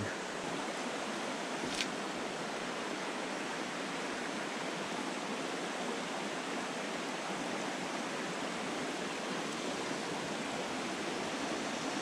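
Shallow mountain stream running over cobbles and rocks: a steady, even rush of water, with one faint click about two seconds in.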